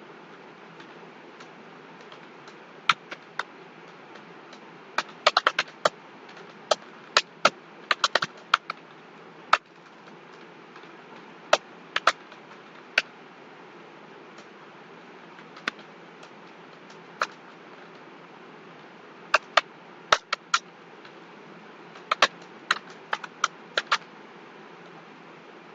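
Keys being struck on a computer keyboard: single clicks and short quick runs of keystrokes, irregular, with pauses of a second or more between them, over a steady background hiss.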